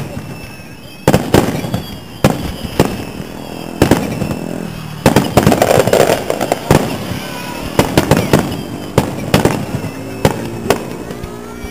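Fireworks display: aerial shells bursting in a string of sharp bangs, one every half second to a second, thickening into a rapid volley in the middle.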